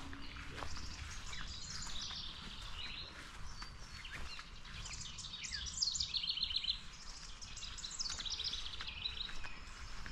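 Wild songbirds chirping and trilling, with a fast trill about six seconds in, over a low steady background rumble.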